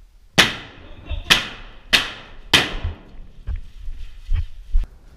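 A series of sharp cracking impacts, four loud ones with short echoing tails less than a second apart, followed by several fainter knocks.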